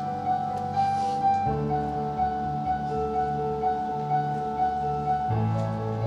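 Background music: sustained chords under a steady pulse of about two notes a second, with the harmony changing about a second and a half in and again near the end.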